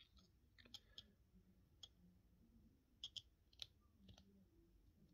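Faint, irregular clicks and taps of small 3D-printed plastic puzzle pieces being handled and fitted together in the fingers, with a few clicks close together about three seconds in.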